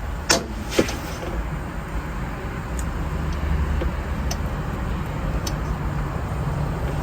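Honda Civic B-series engine idling with a steady low rumble. Two sharp clicks about half a second apart sound near the start.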